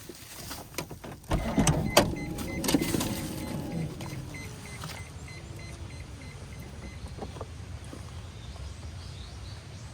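Car sounds: knocks and thuds, a short repeating electronic beeping, then a steady low hum of the car running from about four seconds in.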